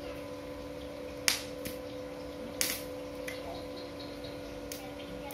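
UCHIHA 450-watt electric arc welder burning an arc on steel: a steady electric hum with several sharp crackling pops spread through.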